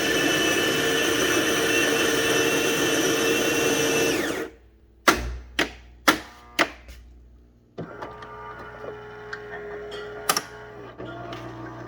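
Gaggia bean-to-cup coffee machine working through a brew cycle. A loud, steady motor runs for about four seconds and stops. Then come four sharp clacks about half a second apart, then a quieter motor hum with a few light ticks.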